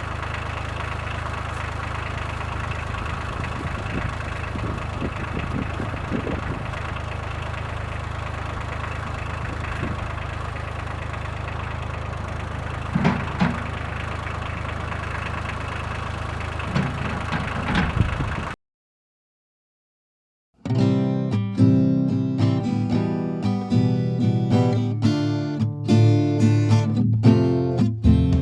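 Farm tractor engine idling steadily, with a few knocks about two-thirds of the way through. It cuts off suddenly, and after two seconds of silence, guitar music begins.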